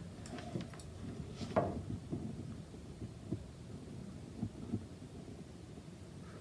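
Soft handling noise from soldering wires to a small DC motor's terminals: a few scattered taps and knocks over a low steady hum, the loudest about a second and a half in.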